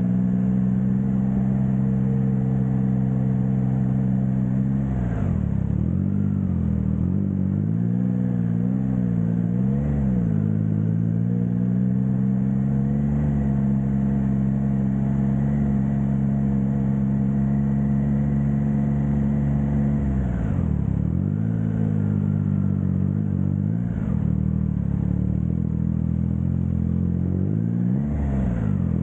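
Triumph Trident 660's inline three-cylinder engine through a Blackwidow 200 mm aftermarket exhaust, running at a steady road speed. Its note drops away and climbs back up several times, about five seconds in, twice between eight and ten seconds, about twenty seconds in and near the end.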